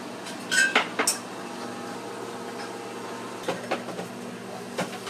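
Kitchen handling noises: a cluster of three or four sharp clicks and knocks about half a second to a second in, then a few lighter knocks later, over a steady machine hum.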